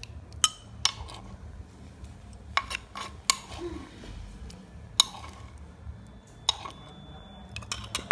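A ceramic bowl and a metal spoon clinking as they are handled: about ten sharp, separate knocks, several in quick succession near the end.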